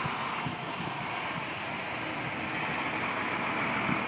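Steady outdoor vehicle noise, a continuous hiss with low rumble, typical of road traffic running nearby.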